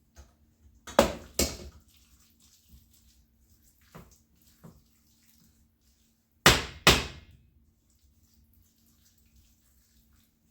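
Two pairs of sharp knocks a few seconds apart, each knock ringing briefly, with a couple of fainter clicks between: a serving utensil knocked against the bowl or baking dish to shake off the creamy spaghetti.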